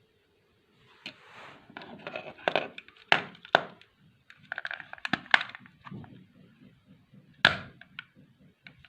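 Rustling handling noise with sharp clicks and knocks, starting about a second in, the loudest knocks a little after three seconds, around five seconds and about seven and a half seconds in.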